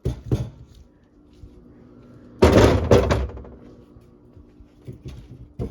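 Knocks and rattling as large carrots are pushed into a plastic refrigerator drawer, with a loud cluster of thumps about two and a half seconds in and lighter knocks at the start and near the end.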